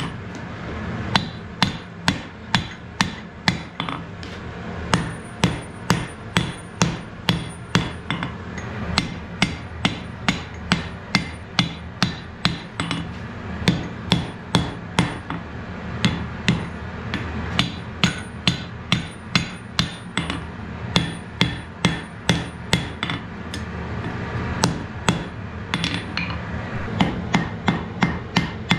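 Hand hammer striking a red-hot wrought iron axe head on a steel anvil: runs of blows at about two to three a second, with short pauses between runs, over a steady low hum.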